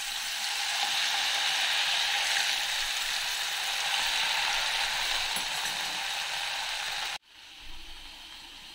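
Cornflour-coated potato strips deep-frying in hot oil, a dense steady sizzle that cuts off suddenly about seven seconds in.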